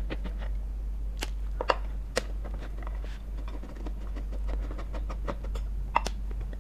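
Screwdriver working the screws of a ceiling fan's motor housing: light scratching ticks with a few sharp metallic clicks, three in the first couple of seconds and one near the end, over a steady low hum.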